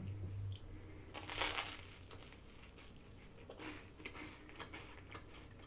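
Quiet eating sounds: a short crunchy bite about a second in, followed by soft chewing and a few small clicks.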